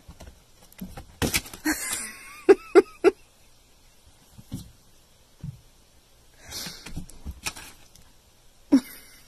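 A cat hissing in breathy bursts while squaring up to its own reflection in a mirror, with three short loud cries about two and a half seconds in and another near the end.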